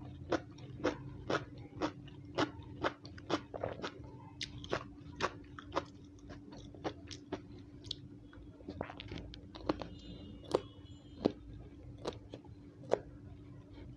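Raw yardlong beans (asparagus beans) bitten and chewed close up, giving sharp, crisp crunches about twice a second for the first few seconds, then more spaced out.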